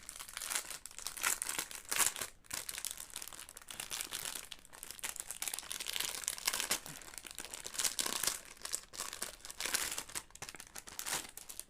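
A small packet's wrapping being crinkled and torn open by hand: an irregular run of rustling and crackling.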